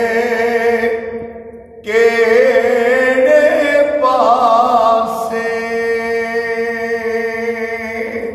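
A man chanting devotional Urdu/Punjabi kalam unaccompanied, in long held, ornamented notes. One phrase fades just after a second in, and a new long phrase begins about two seconds in.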